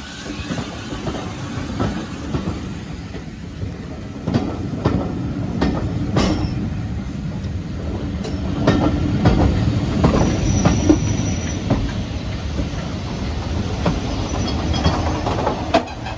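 Railway carriages rolling past close alongside: a steady rumble of wheels on the track with repeated clicks over rail joints, and a brief high wheel squeal near the middle.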